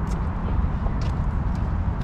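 Outdoor background noise: a steady low rumble with a few faint clicks.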